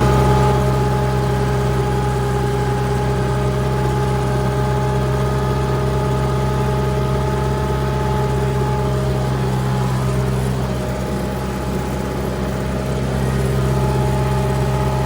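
Tractor engine running steadily at constant speed while mowing.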